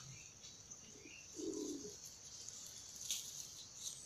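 A dove cooing once, about a second and a half in, over a steady high drone of insects. A short sharp click comes about three seconds in.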